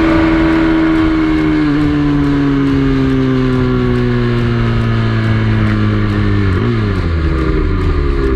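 Single-cylinder engine of a Kawasaki KSR minibike running at speed, its revs held high at first and then slowly winding down as the bike slows, with a quick drop and pick-up in revs about seven seconds in, over steady wind noise.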